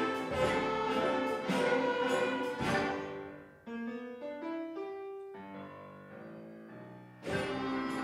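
A school orchestra of strings, woodwinds, brass and drums plays a swing tune. It drops to a quieter passage of single melodic notes stepping up and down, and the full band comes back in with a sharp entry near the end.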